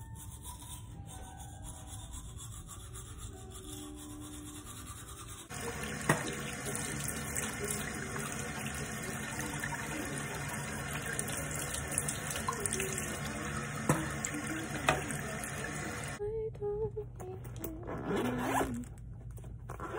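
Running water, a steady hiss that grows louder about five seconds in and stops a few seconds before the end.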